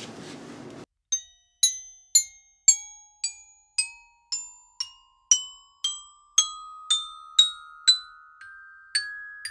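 Music cue of bell-like mallet notes struck about twice a second, each ringing and dying away, over a held tone that climbs step by step in pitch, building suspense. It starts after about a second of room noise that cuts off abruptly.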